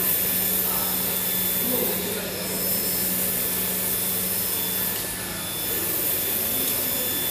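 YD2513-R UV flatbed printer running: a steady whir with a low hum, swelling and easing a little every two to three seconds as the print carriage sweeps back and forth over the tiles.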